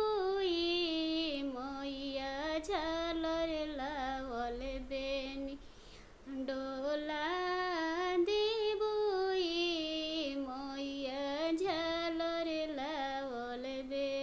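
A woman singing a devotional Maiya bhajan solo, without accompaniment, in two long melodic phrases with a brief breath between them about six seconds in.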